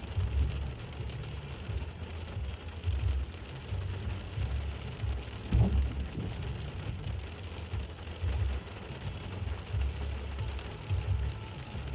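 Rain falling steadily during a thunderstorm, with a low rumble that keeps rising and falling underneath. There is a dull thump about halfway through and another at the end.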